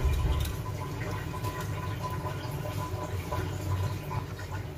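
Water dripping and draining from freshly soaked jackfruit seeds in a plastic mesh strainer over a steel sink, with the wet seeds shifted about by hand. The sound is faint and steady throughout, with a heavier handling thump at the very start.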